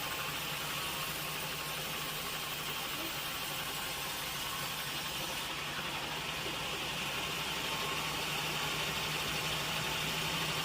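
Sawmill machinery running steadily with a constant low hum, getting slightly louder over the last few seconds.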